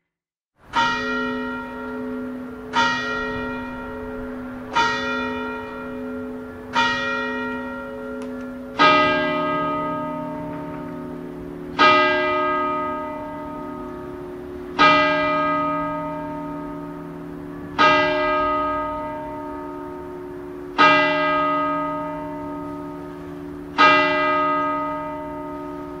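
Church bells tolling: four strikes about two seconds apart, then six slower strikes about three seconds apart with a deeper tone, each stroke ringing on into the next.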